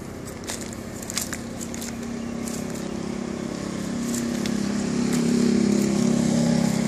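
A steady engine hum that grows louder from about halfway in, with a few light crunching footsteps near the start.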